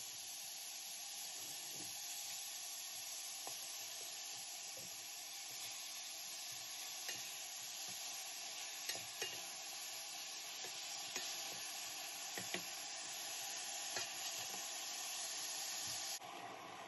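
Minced beef sizzling as it browns in a stainless steel pot, stirred with a wooden spoon, with a few short clicks of the spoon against the pot. The sizzle drops suddenly quieter near the end.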